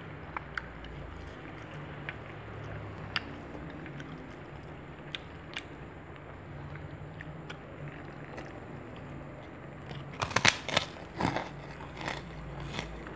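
Close-up eating sounds: chewing with scattered small clicks, then a burst of loud crunching about ten seconds in, with a few more crunches near the end.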